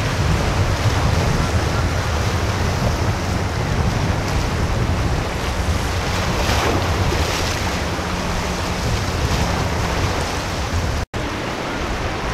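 Outboard engines of a quad-outboard center-console boat running at speed, a steady low drone under the wash of its wake and surf, with wind buffeting the microphone. The sound cuts out for an instant near the end.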